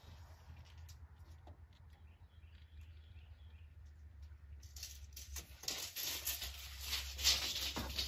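Scattered light clicks and rattling from hand work, sparse at first and getting denser and louder about five seconds in, over a steady low hum.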